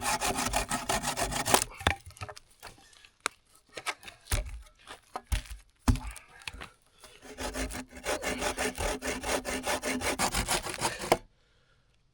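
Hand saw cutting through a log of aspen deadfall in quick back-and-forth strokes. The sawing stops about two seconds in, with a few scattered knocks for several seconds, then starts again around seven seconds in and stops about a second before the end.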